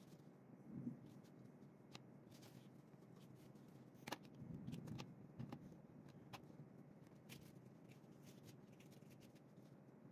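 Faint handling of a large sheet of drawing paper and pens on a desk: soft rustles and bumps with a few light clicks, the sharpest about four seconds in.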